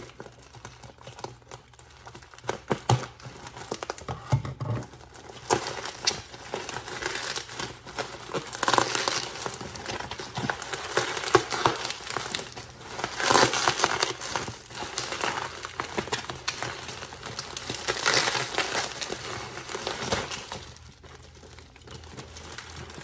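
Packaging being unwrapped by hand: irregular crinkling and rustling with some tearing, in bouts that are busiest in the middle and die down near the end.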